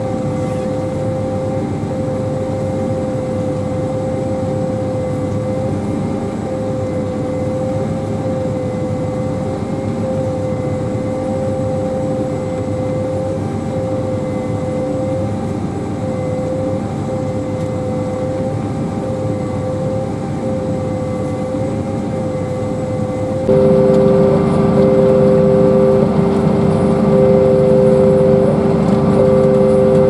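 Ploeger self-propelled pea viner running while harvesting: a steady machine drone with a constant high whine. About three-quarters of the way through it suddenly becomes louder and a second, lower whine joins in.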